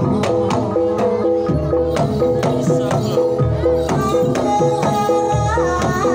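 Javanese gamelan playing a Banyumasan tayub piece: large kenong pot gongs struck in a steady repeating pattern, with kendang drum strokes underneath.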